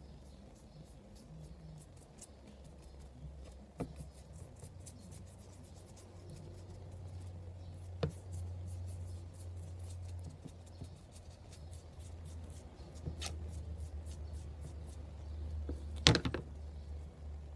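Hands working on a sculpted sea star model: faint ticking throughout and four sharp taps, the loudest about sixteen seconds in, over a low steady hum.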